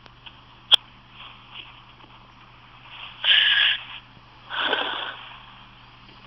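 A person hiccuping, recorded on a phone: one short, sharp hiccup less than a second in, then two louder breathy sounds, each about half a second long, a little over a second apart.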